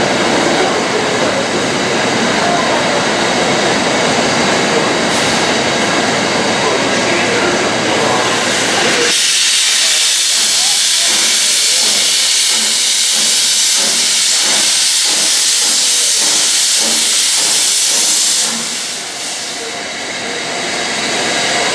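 Metropolitan Railway No. 1, an 0-4-4 steam tank engine, approaching with a steady rumble. About nine seconds in a loud hiss of steam starts abruptly, with a regular pulsing beneath it, and it eases off about nine seconds later.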